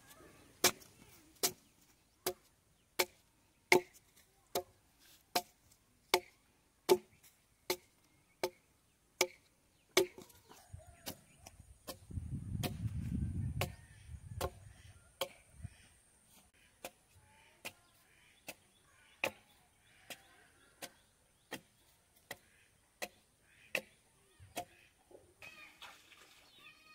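Small axe chopping into a log, hewing off the bark: sharp wooden chops in a steady rhythm, about one every three-quarters of a second, stopping shortly before the end. A brief low rumble comes through in the middle.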